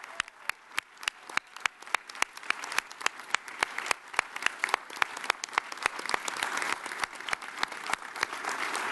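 Applause: a crowd clapping, with sharp close claps at about four a second from hands right at the lectern microphones. The crowd's clapping grows louder in the second half.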